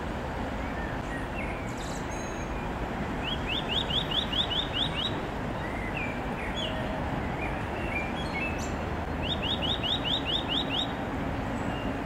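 Eurasian nuthatch singing: two quick runs of about eight short rising notes, some six seconds apart, with a few scattered single call notes, over steady background noise.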